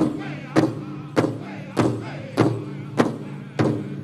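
Powwow drum group singing a chicken dance song, the big drum struck in unison at a steady beat of a bit under two strokes a second. Each stroke rings on, with the singers' voices faintly between the beats.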